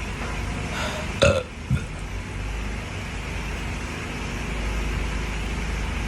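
A person burping: one short, loud burp about a second in, followed by a smaller one, over a steady background hum that grows a little louder near the end.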